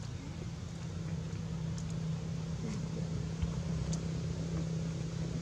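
Steady low engine hum, with a few faint brief high ticks over it.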